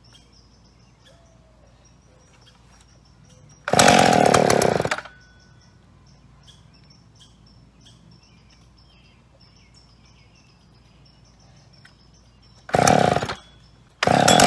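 McCulloch Pro Mac 605 58cc two-stroke chainsaw engine being pull-started. It fires and runs for about a second and dies, fires briefly again near the end, then catches and keeps running.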